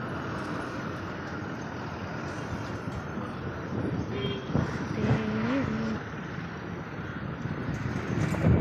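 Steady outdoor background of road traffic, with two brief faint pitched sounds in the middle.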